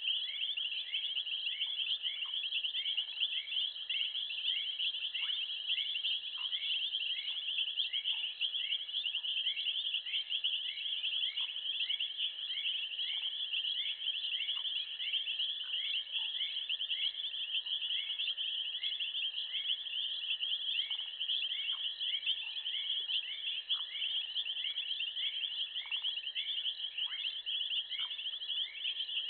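Continuous high-pitched chorus of night insects such as crickets, with a separate short rising chirp repeating about twice a second beneath it.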